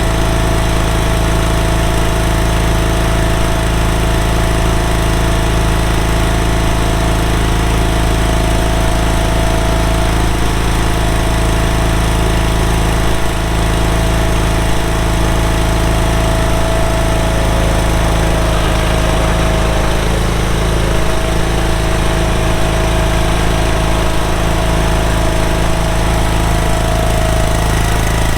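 Barreto 30SG stump grinder's 31 hp Briggs & Stratton V-twin gas engine running steadily at high speed, with a steady high whine over the engine note.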